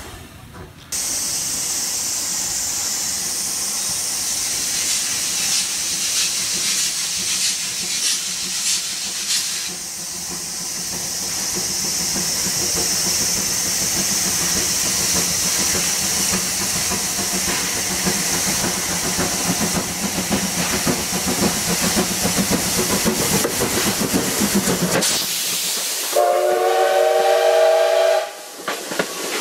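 C56 class 2-6-0 steam locomotive C56 44 hissing steam steadily. Near the end its steam whistle sounds for about two seconds, then coaches start rolling past.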